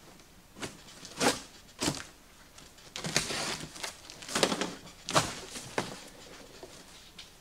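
Cardboard shipping box being opened by hand: a string of short rips and scrapes as tape gives and the flaps are pulled open, with a longer rasping tear about three seconds in.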